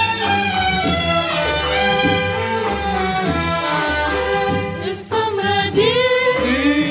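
Instrumental passage of an Egyptian sha'bi song: an orchestra with strings plays the melody over a bass line, between sung verses.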